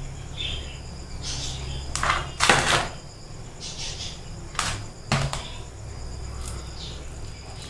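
Metal spoon knocking and scraping against a bowl while scooping coarsely ground chana dal paste. There are a few short clinks and one longer scrape, over a steady low hum.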